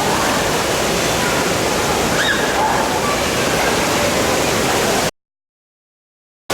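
Loud, steady rushing noise with faint voices mixed in, which cuts abruptly to dead silence about five seconds in.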